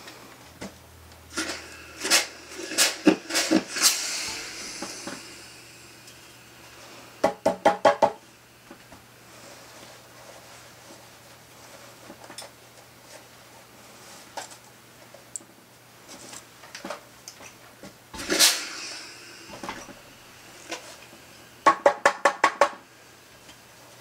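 Clicks and knocks from work at an ironing board while a jeans hem is folded and pressed, with a faint hiss after two of the clusters. Two quick runs of about six ringing taps stand out, one about seven seconds in and one near the end.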